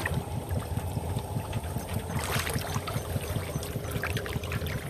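Shallow muddy canal water sloshing and splashing as hands grope through it for fish, over a steady low rumble, with a larger splash about two seconds in.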